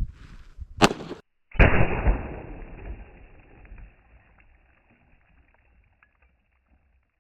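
A .357 Magnum single-action revolver firing: a sharp crack just under a second in. After a moment of silence comes a dull, slowed-down boom with no treble, fading out over about three seconds.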